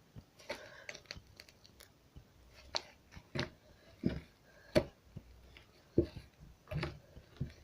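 Slime being squeezed and pressed by hand, giving irregular sticky pops and crackles, about a dozen in all.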